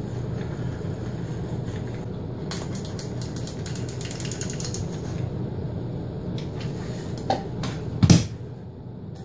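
Hand-cranked drill whirring steadily as its gears turn and the bit bores a pilot hole for a screw into a wooden board, with a run of fast clicks in the middle. A single sharp knock near the end.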